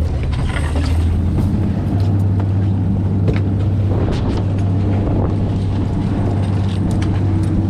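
Boat engine running with a steady low hum that grows a little louder about two seconds in, with scattered knocks and clatter on deck.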